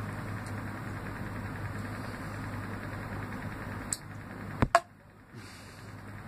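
A steady low mechanical hum, engine-like, with two sharp clicks in quick succession past the middle. After the clicks the hum drops out briefly, then comes back quieter.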